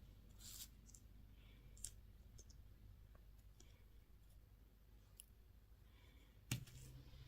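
Faint, scattered clicks and light taps as small plastic toys or candy packaging are handled, with one louder click about six and a half seconds in.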